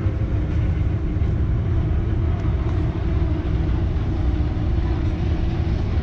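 Sportfishing boat's engines running with a steady low rumble as it motors in toward the dock.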